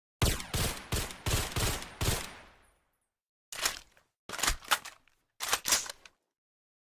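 Gunshot sound effect of a suppressed Mauser carbine rifle: a quick string of about six shots with a fading tail, then after a silent gap one shot and two short rapid bursts of three or four shots, each group cut off into dead silence.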